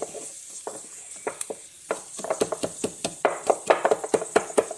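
Wooden pestle pounding garlic cloves in a wooden mortar: a few spaced knocks, then from about two seconds in a fast run of sharp strikes, about six a second.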